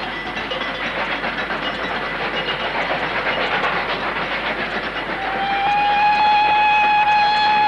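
Machine sound effect: a steam-engine-like clatter and hiss, then a loud steady whistle starting about five seconds in.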